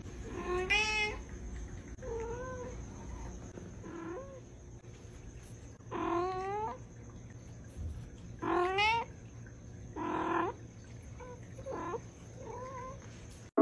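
A cat meowing over and over, about eight separate meows with rising-and-falling pitch. The loudest come about six, nine and ten seconds in.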